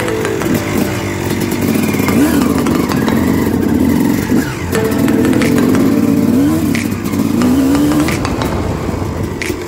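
Dirt bike engine revving up and down over and over as the bike picks its way along a narrow grassy trail, its pitch rising and falling with each twist of the throttle. A few sharp clicks come in the second half.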